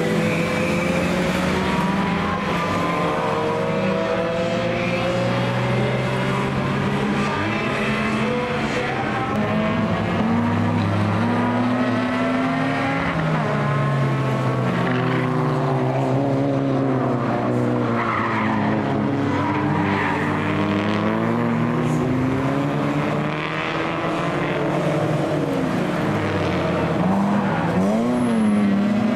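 Several racing cars' engines passing through a corner at full race pace, their notes overlapping and repeatedly rising and falling as they brake, change gear and accelerate away.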